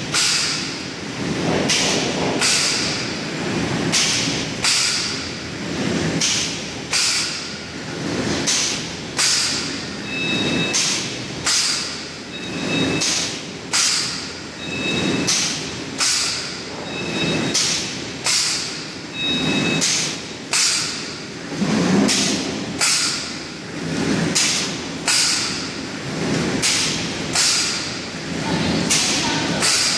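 Plastic bag making machine running: a sharp clack with a short fading tail about once a second as it cycles, over a steady mechanical rumble. A faint high whistle comes and goes in the middle.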